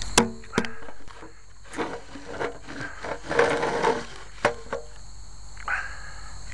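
A few sharp clicks and knocks: a loud one right at the start, another just after, and two more later, with a stretch of rustling in between. Crickets chirp steadily behind.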